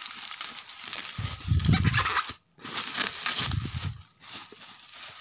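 Plastic bubble wrap crinkling and rustling as hands pull it off a packaged item, with dull rubbing and handling noise twice. The sound briefly cuts out about halfway.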